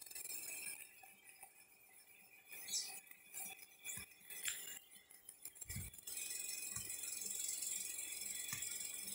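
Faint background hiss with a few scattered small clinks and one soft low thump a little over halfway through.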